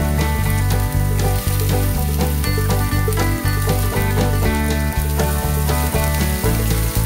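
Onion, broccoli stems and beef cubes sizzling in oil in a non-stick frying pan, with a spatula stirring toward the end, under background music with a steady bass line.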